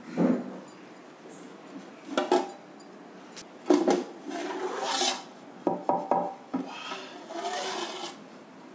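A heavy cast-iron dosa tawa lifted off an aluminium pot lid, then the lid handled and taken off the pot with a cloth: metal scraping on metal and a series of clanks, some ringing briefly.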